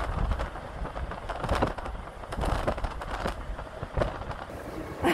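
Wind buffeting an outdoor microphone: an uneven low rumble with gusty surges and no clear tone.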